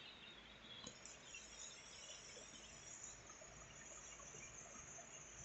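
Near silence with faint, steady, high-pitched insect chirring in the background.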